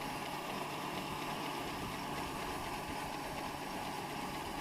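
Oliver 1755 tractor engine running steadily.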